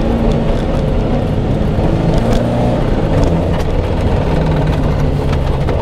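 Fiat 131 rally car's engine running hard, heard from inside the cabin, with road noise; the engine note drops about halfway through, then holds steady.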